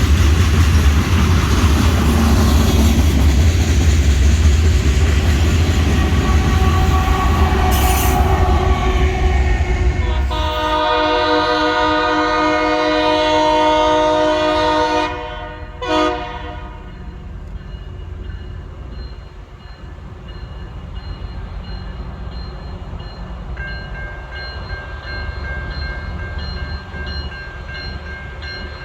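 Train rumbling past loudly for about ten seconds, then a locomotive air horn sounds one long chord for about four seconds and cuts off. Quieter steady tones come in again near the end.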